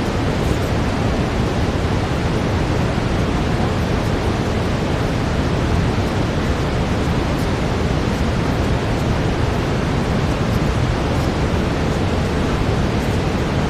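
Steady brown noise: an even, deep rushing hiss weighted toward the low end, unchanging in level.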